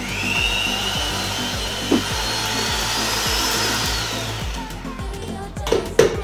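Electric hand mixer starting up and running in cookie batter in a metal bowl, its whine steady for about four seconds, then winding down as it is switched off. A few clanks of the beaters against the bowl follow near the end.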